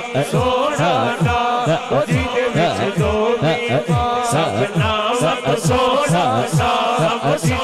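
A naat sung by a male reciter into a microphone, with chanting voices and a steady rhythmic low beat underneath.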